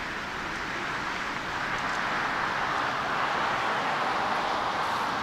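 Jet engine noise from a twin-engine Boeing 777 freighter climbing away after takeoff, a steady roar that swells slightly about a second and a half in.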